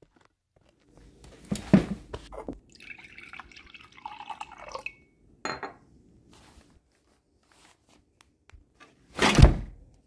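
Homemade foley of a drink at a bar: a few clunks and knocks, then about two seconds of liquid trickling and dripping with a falling pitch, a short click, and one loud thud near the end.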